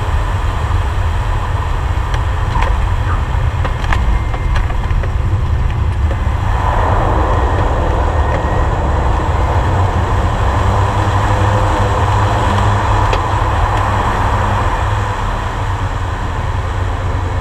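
Air Tractor 502XP's Pratt & Whitney PT6A turboprop engine and propeller running, heard inside the cockpit as the plane rolls and taxis on a dirt strip: a steady deep rumble, with a brighter rushing sound coming up about six and a half seconds in and holding.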